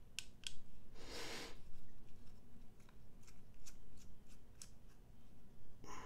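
Faint small metallic clicks and scrapes of a small screwdriver turning out the screw that holds a folding knife's pocket clip. There is a short rustle about a second in.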